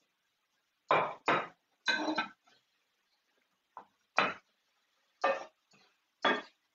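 Metal serving utensils knocking and clinking against a frying pan and a ceramic plate: about eight sharp, irregular knocks, a few of them ringing briefly.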